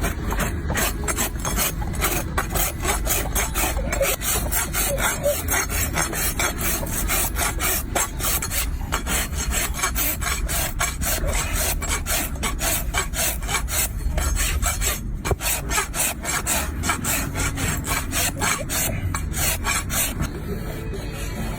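Farrier's rasp filing a donkey hoof in rapid back-and-forth strokes, a steady scraping rhythm with a couple of brief pauses.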